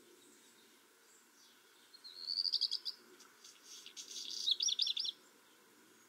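Black redstart singing one song phrase of about three seconds. It opens with a short rising whistle, goes into a scratchy, crackling middle part, and ends in four quick whistled notes.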